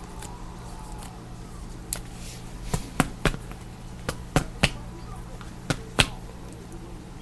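A run of sharp clicks and taps, about nine in quick irregular succession, from trading cards being handled and tapped on a table as a freshly opened pack is sorted, over a steady low electrical hum.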